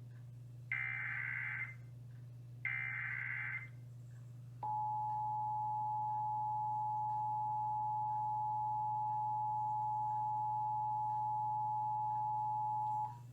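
Emergency Alert System broadcast tones. First come two bursts of warbling digital data tones, about a second each: the SAME header. Then, about four and a half seconds in, the EAS attention signal begins, a steady two-tone beep held for about eight and a half seconds before cutting off. A low steady hum runs underneath.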